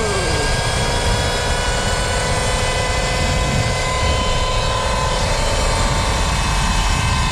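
Sur-Ron electric dirt bike at full speed: a steady high whine from the motor and the 219 chain drive, a chain the rider calls noisy, over heavy wind buffeting on the microphone.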